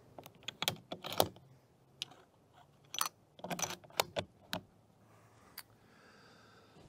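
Irregular sharp metallic clicks and light knocks from a bolt-action rifle being handled on its rest, coming singly and in small groups, with a cluster around the middle.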